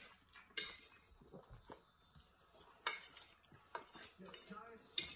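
Metal fork clinking and scraping on a plate, three sharp clinks about half a second in, near three seconds and near the end, with lighter ticks between.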